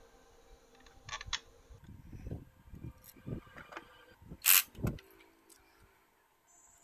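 Small steel bolts and parts clinking and rattling as they are handled, with scattered light clicks and one sharp, much louder clack about four and a half seconds in.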